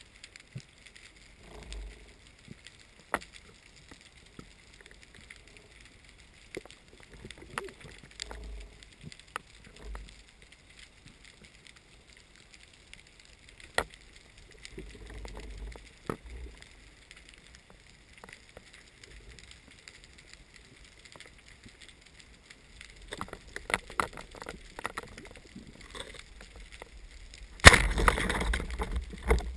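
Underwater: faint scattered clicks and low water rumble, then near the end a sudden sharp report as a speargun fires, followed by loud churning water noise.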